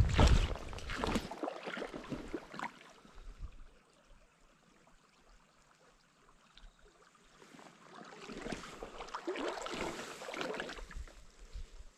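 River water splashing and sloshing in uneven bursts, loudest in the first second or two, dropping to near silence for a few seconds, then splashing again near the end.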